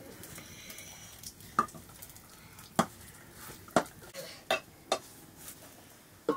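A stirring utensil knocking against a metal cooking pot as a curry is stirred over a wood fire: about six sharp clinks at uneven intervals over a faint steady hiss.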